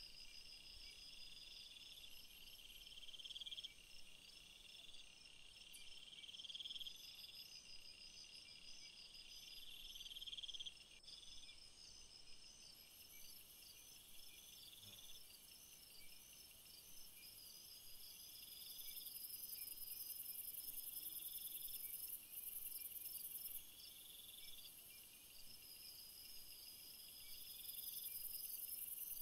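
Faint insect chorus: several insects trilling together, one repeating a rising phrase every second or two, with a higher buzz joining about halfway through.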